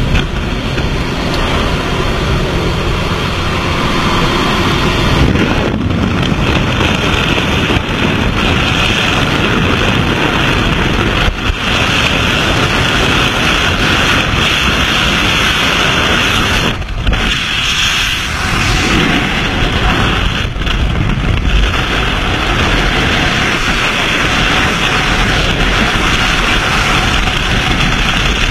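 Loud, steady rush of wind over a skydiver's camera microphone, at the open door of the jump plane and in freefall, with a few brief dips.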